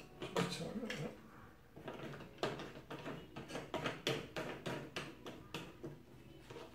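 Two-stroke petrol mix pouring from a plastic fuel can into a Stihl KM56 Kombi engine's fuel tank, glugging and gurgling irregularly with small knocks of plastic.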